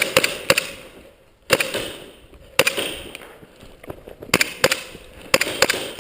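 Airsoft guns firing single shots, about ten in loose groups of one to three, each sharp crack trailing off in a short echo.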